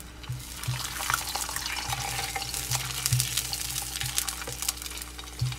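A maida chapati frying in plenty of oil in a non-stick pan, the oil sizzling with a steady crackle of fine spits. A wooden spatula presses and moves the bread around the pan, adding soft irregular knocks and scrapes.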